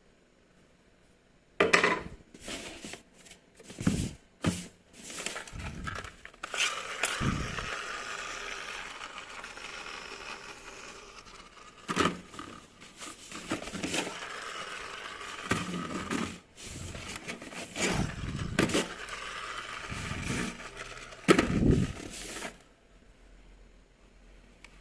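Scraping and rustling handling noises broken by sharp knocks. They start about two seconds in and stop a couple of seconds before the end.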